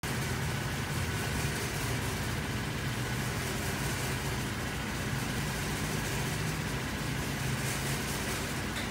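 A steady low mechanical hum, like an idling engine, with an even hiss over it and no change in level throughout.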